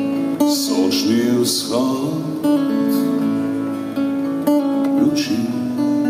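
Steel-string acoustic guitar strummed in an instrumental break of a slow song, chords ringing between strokes.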